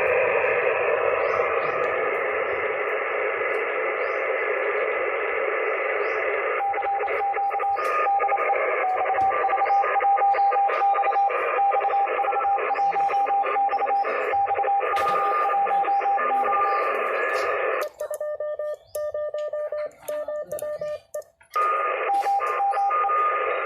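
Morse code (CW) heard through a shortwave radio receiver: band hiss, and after a few seconds a steady beep keyed on and off in dots and dashes. Near the end the hiss cuts out and a cleaner keyed tone carries on.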